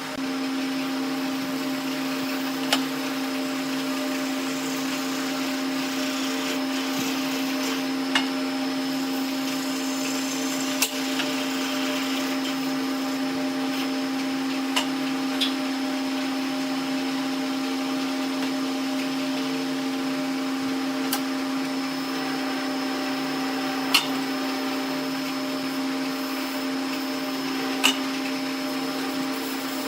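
An electric motor running steadily with an even hum, with a few sharp clicks or taps over it.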